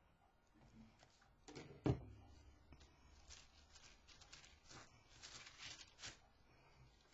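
A single low thump about two seconds in. It is followed by soft, scattered crackling and rustling as crumpled tissue paper is pressed and dabbed onto a paper tole tree trunk with the fingers.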